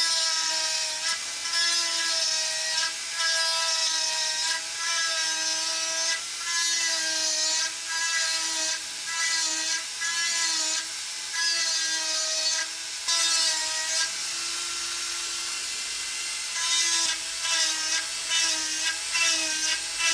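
Dremel rotary tool with a 3 mm drill bit running at speed and drilling into the slot of a wooden lure body. Its high whine sags a little in pitch, and a rasping hiss comes in each time the bit is pressed into the wood, in repeated short passes about once a second.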